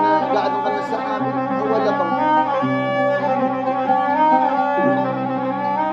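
Instrumental break in a sad Arabic mawwal song: a violin melody of held notes with some slides, over low bass notes that change every second or two.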